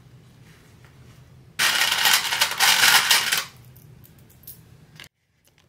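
A handful of sewing clips dropped into a small metal tin, a rattling clatter of many small hits about one and a half seconds in, lasting just under two seconds.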